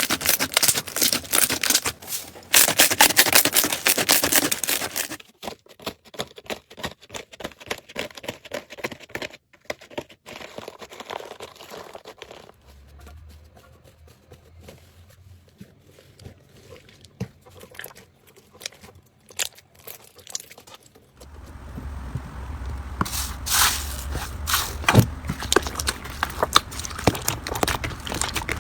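Slime being squeezed and worked by hand, giving rapid crackling and popping clicks. The clicks are dense and loud for the first few seconds, thin out and grow quieter through the middle, and come back loud for the last several seconds over a low hum.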